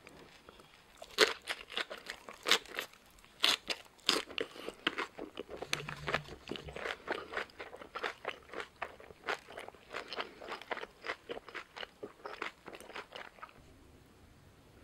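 Close, crisp crunching and chewing of a bossam wrap: a raw napa cabbage leaf around boiled pork and spicy shredded radish salad. A run of sharp crunches starts about a second in, is loudest over the first few seconds, then settles into steadier chewing that stops shortly before the end.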